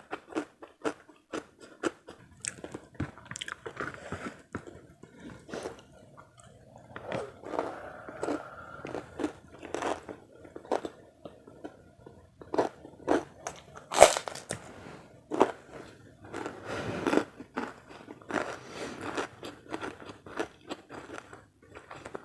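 Close-up eating sounds: repeated crunching and chewing of crisp food from a meal of karedok raw-vegetable salad and crackers, in short irregular bites, with the loudest crunch about two-thirds of the way through.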